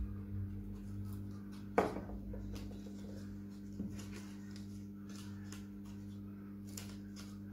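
Paper-craft handling: a glue stick is rubbed on a paper flower and the flower is pressed onto card, with faint rustles and ticks. A sharp tap comes about two seconds in and a smaller one near four seconds, over a steady low hum.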